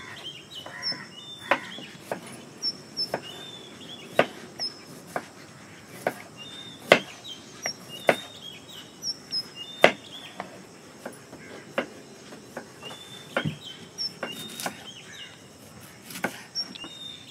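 Knife slicing onions on a wooden chopping board: sharp, irregular taps about every half-second to two seconds. Birds chirp in the background throughout.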